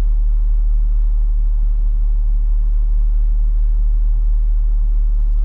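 Steady low rumble of a car's engine, heard from inside the cabin, unchanging throughout.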